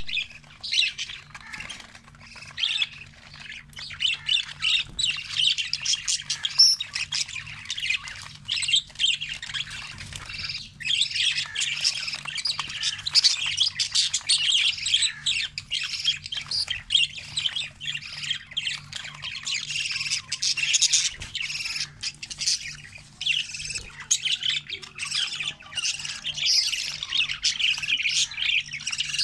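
Budgerigars chattering and squawking, a busy stream of overlapping high, scratchy calls with only brief pauses.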